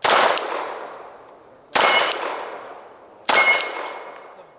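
Three pistol shots at steel targets, about a second and a half apart. Each is followed by a long, decaying metallic ring, which is clearest after the second and third, as the steel plates are struck.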